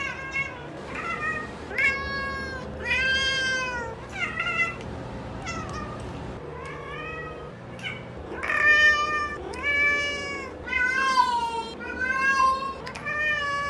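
A tabby cat meowing over and over, a long string of short meows that each rise and fall in pitch, growing louder and closer together in the second half.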